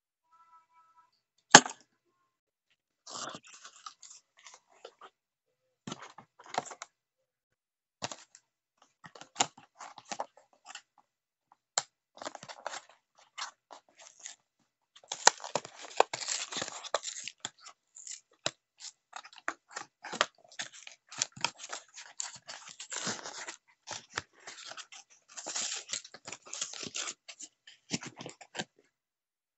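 Cardboard and plastic blister packaging of a small die-cast toy car being torn open and handled: irregular crinkling, tearing and clicking, busiest in the middle and near the end, with one sharp click about a second and a half in.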